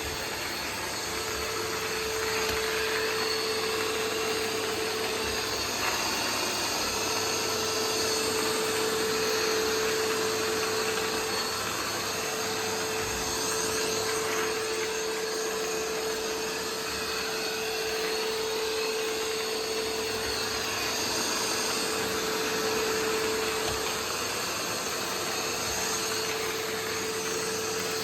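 Roomba 505 robot vacuum running, a steady whirring drone of its motors and brushes with a steady hum tone that drops out briefly a few times.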